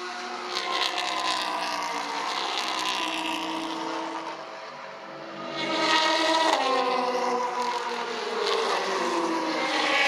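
GTE race car engines passing one after another: an Aston Martin Vantage GTE going by at the start, then a louder Ferrari 488 GTE about six seconds in, the engine note falling as each passes. Near the end another car's engine rises as it approaches.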